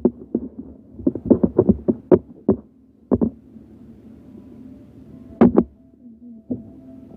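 Irregular soft knocks and thumps of handling, in clusters: a quick run about a second in, then scattered ones, with a louder double knock a little past the middle.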